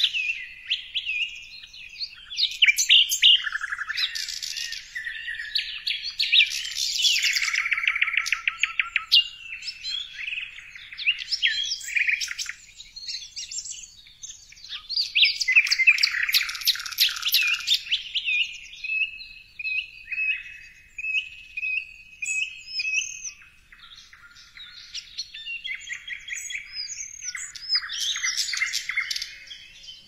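Songbirds chirping and singing: a busy run of varied whistled notes, short chirps and fast trills, thinning out for a moment about three-quarters of the way through.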